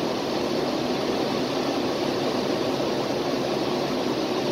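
Steady rushing air noise of an indoor shooting range's ventilation, with no gunshots.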